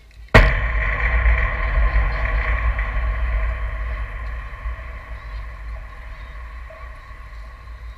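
A baseball slams into the chain-link backstop fence right at the camera with a sharp crack, and the fence rings and rattles, slowly dying away over several seconds.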